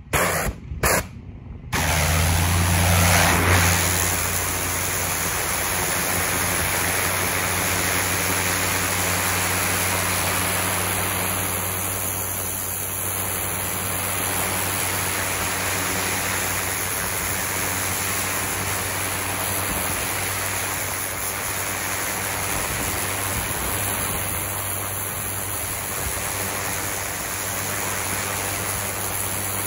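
Pressure washer spraying concrete through a turbo (rotating) nozzle: a steady hiss of water blasting the slab over a low motor hum. The spray cuts out briefly a couple of times at the start, then runs steadily from about two seconds in.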